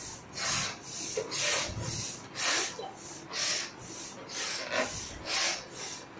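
A child blowing up a rubber balloon: strong breathy puffs about once a second, with gasps for breath between them.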